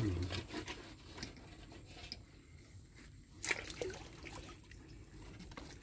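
Faint sloshing and dripping of water stirred by hands groping for prawns in shallow water, with a short, sharper sound about three and a half seconds in.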